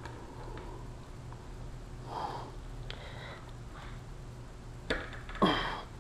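A single light metallic click from a socket and extension pressed on a motorcycle fork preload cap, then a loud, short sniff right at the microphone near the end, over a faint steady hum.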